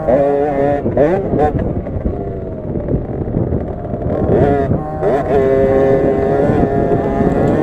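Onboard 50cc two-stroke minibike engine racing on a dirt track. It revs up and down in quick swings at first, drops lower through the middle, then climbs and holds a steady higher pitch for the last couple of seconds.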